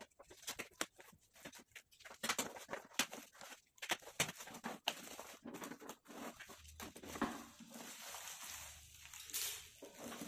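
Clear plastic wrapping crinkling and rustling as it is pulled off moulded plastic chair parts, with many irregular sharp crackles.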